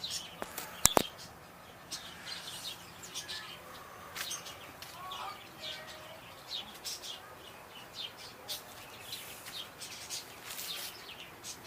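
Small birds chirping repeatedly in short high calls, with two sharp clicks about a second in.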